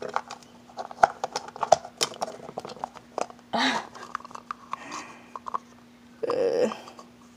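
Small objects and plastic packaging being handled right by a phone microphone: scattered clicks and taps, with a breathy exhale about halfway through and a short vocal sound just after six seconds, over a faint steady hum.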